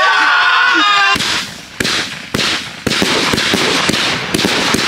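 A person yells briefly, then a consumer firework battery fires: a few sharp bangs about half a second apart, followed by dense, continuous crackling from the bursting stars.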